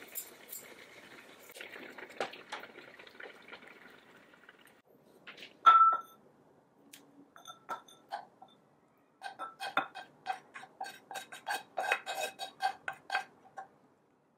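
Pot of oatmeal risotto simmering softly while metal tongs stir in shredded red cabbage. A single loud, ringing clank comes about six seconds in. Near the end a spoon scrapes and taps rapidly against the pot and bowl as the risotto is scooped out.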